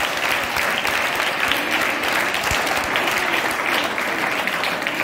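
An audience of schoolchildren clapping together in a hall, a dense, steady round of applause that holds at an even level throughout.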